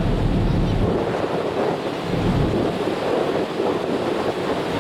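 Steady wind rumbling over the microphone on the deck of a moving ferry, with the wash of the sea against the hull.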